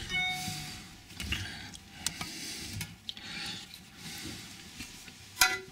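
Fingers turning a metal wing nut and washer on a toilet tank-to-bowl bolt against the porcelain: faint rubbing and scraping with scattered small clicks, and one sharper click near the end.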